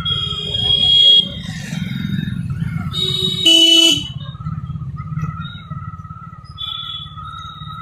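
Vehicle engine running steadily while moving through street traffic, with horns honking: one blast cuts off about a second in and a second short blast comes about three seconds in. After the horns a thin wavering tone carries on under the engine.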